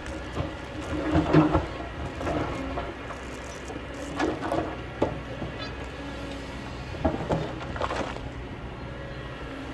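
Kobelco hydraulic excavator's diesel engine running steadily under load, with repeated clanks, scrapes and rock clatter as its bucket digs into the stony hillside; the loudest knock comes about a second in.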